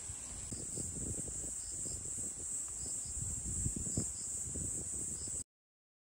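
Steady high-pitched insect chorus, with fainter chirps repeating in pairs and low rumbling noise underneath; the sound cuts off suddenly near the end.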